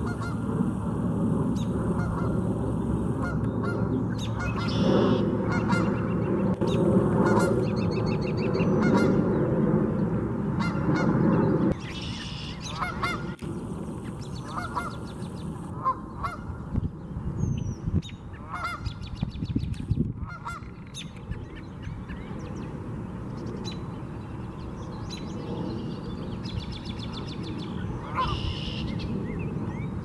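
Canada geese honking, with many calls packed close together and loudest over the first twelve seconds, then fewer honks spaced out after that.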